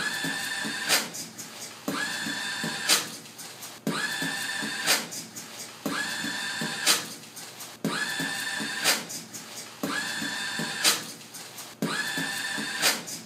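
A motorized automatic paper towel dispenser whirring as it feeds out towel for about a second, each run ending in a loud sharp click. The cycle repeats every two seconds as a steady beat, with short low thumps between the runs.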